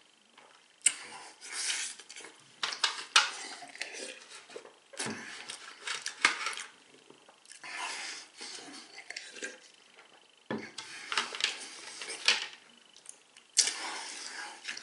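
A man wolfing down cake in a speed-eating challenge: close-up wet chewing and smacking, in irregular bursts broken by sharp clicks and short pauses.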